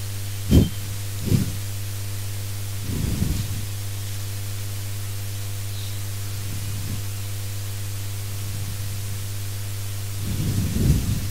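Steady electrical hum with a ladder of buzzing overtones, picked up by the clip-on microphone's line. A few brief soft thumps and rustles come through it, about half a second and a second and a half in, around three seconds, and again near the end.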